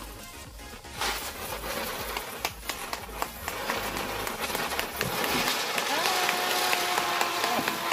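Ground spinner fireworks (chakri) burning: a loud spraying hiss studded with sharp crackles and pops that starts about a second in and grows louder. A steady high tone joins about six seconds in.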